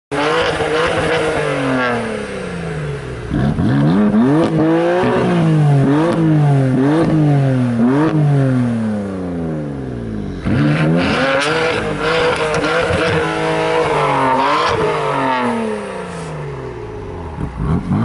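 BMW twin-turbo straight-six revved repeatedly at a standstill, its exhaust note climbing and falling back in quick blips, about a dozen in all, with a short break around ten seconds in.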